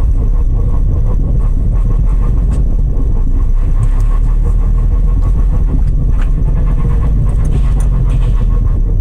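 Steady low rumble from a car, with a few faint clicks over it, which the uploader takes for an abnormal noise.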